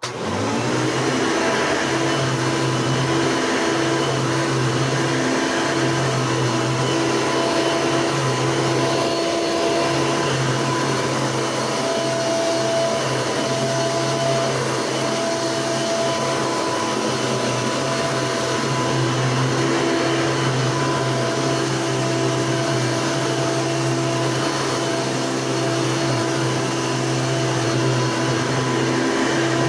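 Hoover Elite 2 vacuum cleaner switched on and running. Its motor comes up to speed within about a second, then runs steadily with a whine over a low hum that swells and fades every few seconds.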